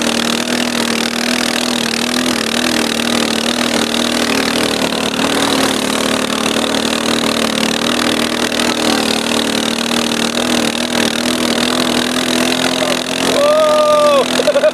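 Arctic Cat 250 ATV engine running steadily at a constant pace while towing two snowboarders on ropes. Near the end a brief shout rises and falls over the engine.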